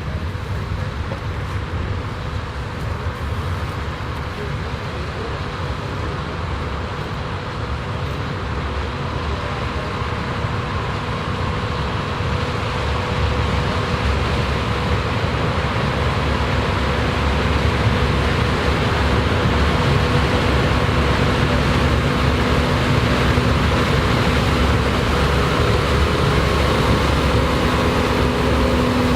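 Combine and tractor engines running steadily while harvesting corn. The noise grows gradually louder, and a steady whine of several tones strengthens in the second half.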